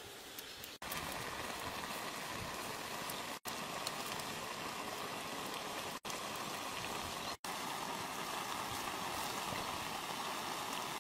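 Shrimp and red chillies boiling in broth in a wok over a wood fire: a steady bubbling hiss, with four very brief drop-outs.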